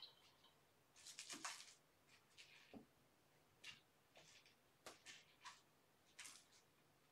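Faint, irregular scuffling and scratching from kittens playing on carpet: short rustles come every half second to a second, with a cluster about a second in.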